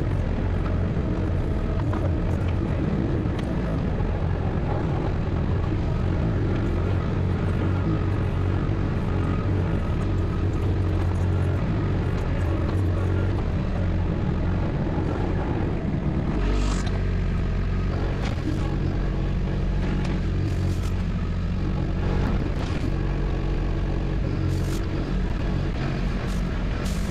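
Compact tractor-loader-backhoe engine running steadily under working load while digging. The engine note shifts about two-thirds of the way through, and a few sharp knocks come in the later part.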